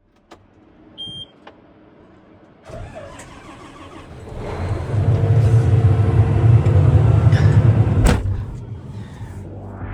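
An engine is started: a short beep, then it cranks and catches about three seconds in and runs up loudly with a steady low hum. A sharp knock comes near the end, and the engine runs on more quietly after it.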